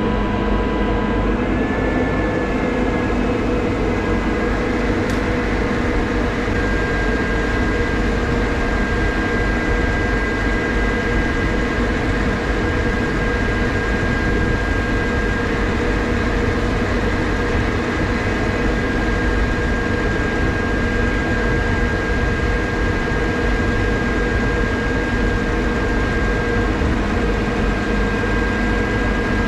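Crane truck's engine running steadily under load as the crane lifts a grain-dryer fan and burner unit, with a steady high whine over it from several seconds in.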